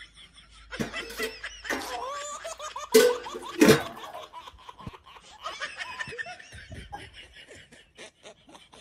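Laughter in bursts, loudest about three seconds in.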